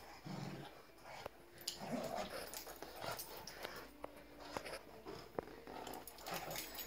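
A Bernese mountain dog and a beagle playing tug-of-war with a toy: faint, short low play growls and scuffling, with a few small clicks.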